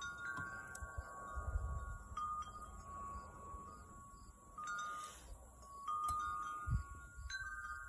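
Wind chimes ringing, a few clear high notes struck one after another and left to ring on. Under them there is a soft low rumble, with a low thump near the end.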